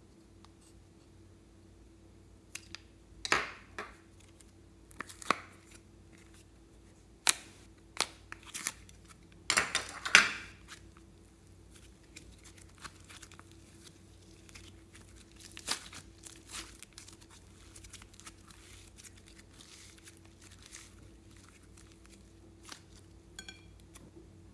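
Plastic of a heart-shaped slime container being torn open and crinkled by hand: a run of sharp rips and crackles, loudest about ten seconds in. After that come softer, scattered crackles as the slime is handled.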